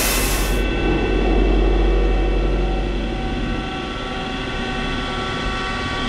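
CNC machining centre running in a machine shop: a steady mechanical noise with several high, even whining tones over a deep hum, and the hum fades about halfway through.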